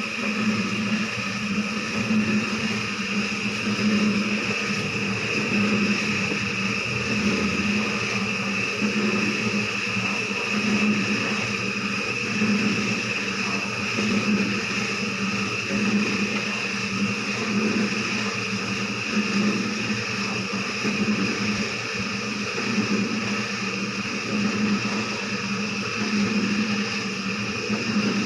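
A small electric motor running steadily with a hum and a higher whine, its low hum pulsing slightly.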